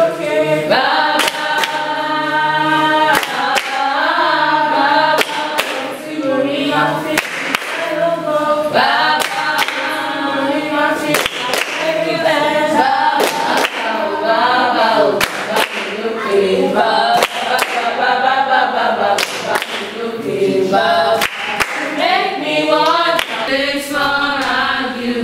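A group of young voices singing a worship song together, with hand claps keeping time.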